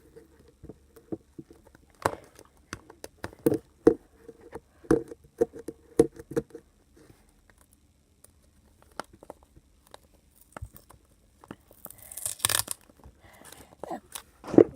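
Duct tape being peeled and torn off small plastic surprise eggs, with short clicks and crinkling from handling the eggs, and a longer rip of tape about twelve seconds in.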